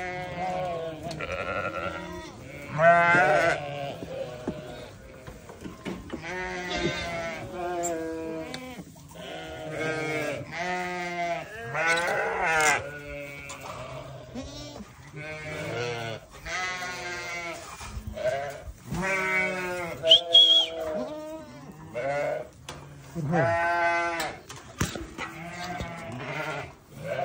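Sheep bleating over and over, a call every second or two, each one wavering in pitch, some calls overlapping.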